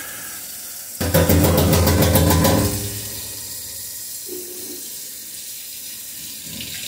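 Kitchen faucet running steadily into a stainless steel sink as a plastic mesh cabin-air filter is rinsed clean under the stream. About a second in, a much louder buzzing spatter lasts for about a second and a half.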